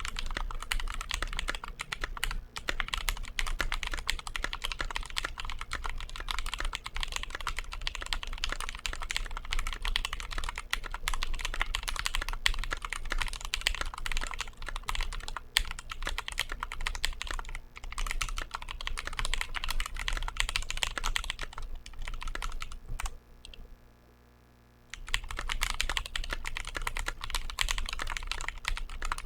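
Typing on a Glorious GMMK Pro mechanical keyboard with TTC Wild switches and JTK Suited Assassin keycaps: a fast, continuous patter of keystrokes. The typing stops for about two seconds some twenty-three seconds in, then picks up again.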